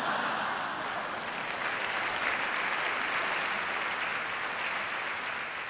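Live theatre audience applauding steadily at the end of a comedy sketch, beginning to die away near the end.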